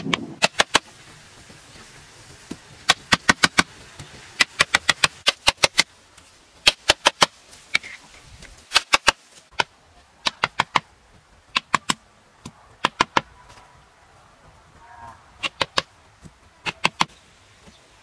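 Stone knocking on stone: quick runs of three to six sharp clacks, repeated every second or so, as stones are tapped together and set in place by hand.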